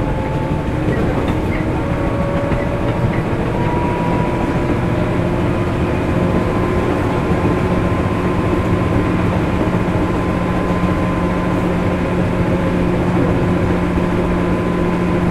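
JR 205 series electric train heard from inside the car while running: traction motor and gear whine rising slightly in pitch over the first few seconds, then holding steady over the continuous rumble of the wheels on the rails.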